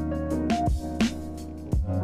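Intro music with a steady beat: sustained pitched notes over a bass line, with regular drum hits.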